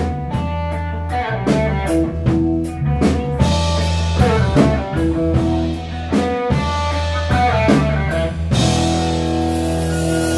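Live blues-rock band playing an instrumental passage: electric guitar over bass guitar and drums, with a blues harmonica, in short phrases broken by brief gaps; the band plays on fully from about eight and a half seconds in.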